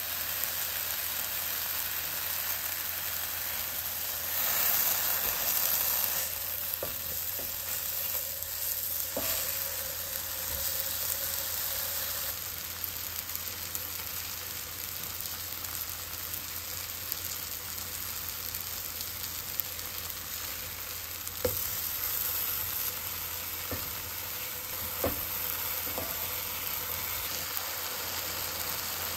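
Apple rings sizzling in butter in a frying pan, a steady hiss that swells for a moment about five seconds in. A few light clicks sound near the end.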